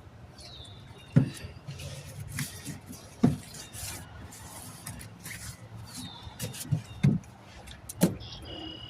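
Sharp knocks and clanks of a tire, steel rim and tools being handled during a manual tire change, four or five strikes a second or two apart, with two short falling squeaks.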